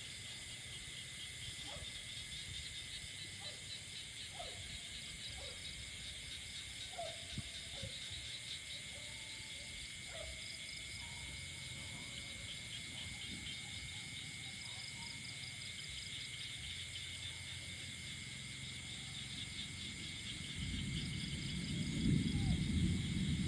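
Night insect chorus: a steady, high, rapidly pulsing trill of crickets, with scattered short calls lower down. A louder low rumbling noise comes in near the end.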